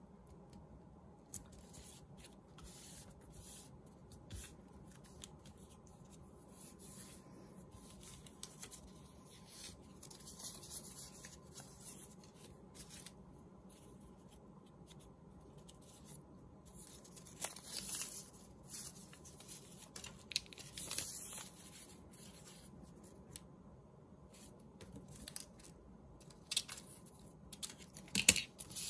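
Faint rustling and crinkling of paper strips as they are picked up, handled and laid down by hand. Several louder rustles come and go, the loudest about two-thirds of the way through and just before the end.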